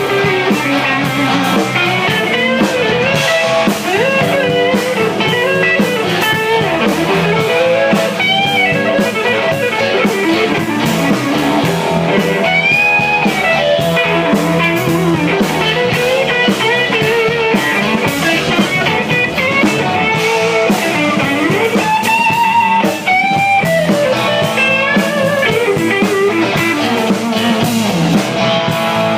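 A live electric blues band playing an instrumental passage: lead electric guitar soloing with bent notes and quick runs over bass and drums.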